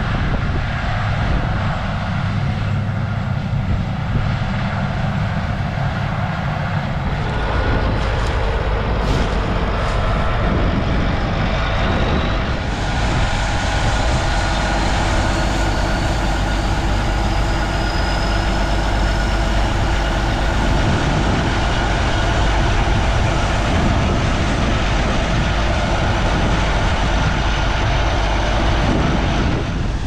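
Heavy diesel farm machinery running steadily, the sound shifting in character about 7 and 12 seconds in. From then on it is the diesel engine of a Cat MT865 track tractor hitched to a grain cart, running close by with a strong, deep, steady sound.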